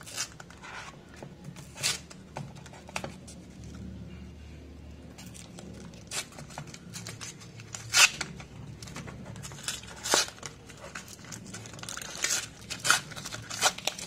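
Paper-and-plastic retail packaging of a laptop RAM stick being torn open by hand: crinkling with several sharp rips, the loudest about 8 and 10 seconds in.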